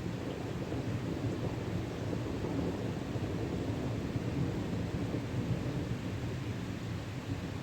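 Thunderstorm: a steady low rumble of thunder, with rain.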